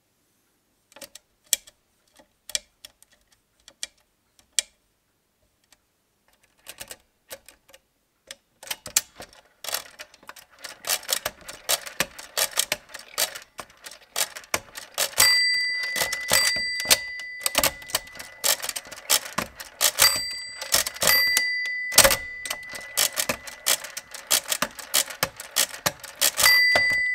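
Walther WSR 160 hand-cranked mechanical calculator at work. First come a few sparse clicks as the number is set, then rapid dense clicking and clattering as the crank is turned again and again for a division. From about halfway in, the machine's bell rings several times, the signal that the register has overdrawn on a subtraction.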